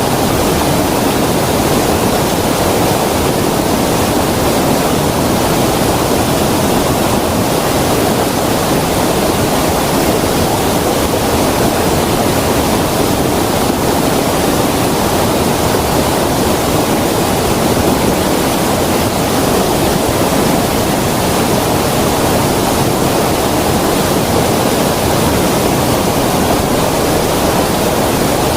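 Creek water rushing steadily, a loud, even hiss with no breaks.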